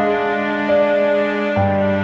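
Background music of slow, held notes forming chords, the harmony shifting twice, with a low bass note coming back in near the end.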